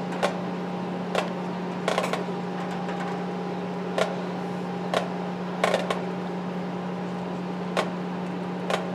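Steady electrical hum with a fainter, higher steady tone above it, broken by about eight short, sharp clicks at uneven intervals.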